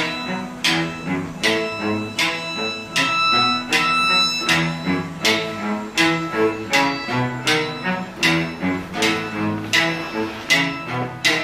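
Chamber music played by violin, cello and guitar: sustained bowed string notes over plucked guitar, with regular sharp accents about every three quarters of a second.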